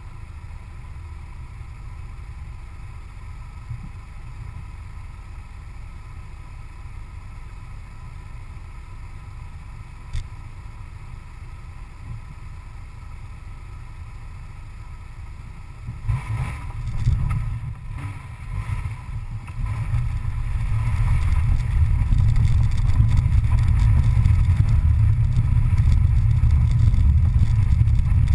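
Vehicle sitting with a steady low rumble, then pulling away a little over halfway through. It then drives on with a loud, steady low rumble of engine, road and wind noise, heard through a camera mounted on the outside of the vehicle.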